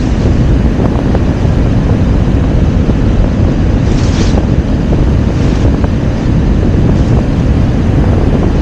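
Heavy wind buffeting the microphone over the rush of water along the hull of a Viko 21 sailboat under sail, with a brief hiss about four seconds in.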